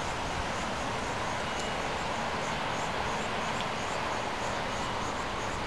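Steady rushing noise of road traffic, with a faint high chirping repeating about twice a second.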